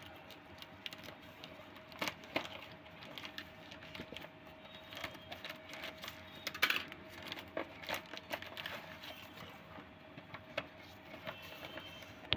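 Hands handling the packaging and contents of a wireless earbuds box: irregular clicks, taps and rustles, the loudest about two seconds in and near the middle, over a faint steady hum.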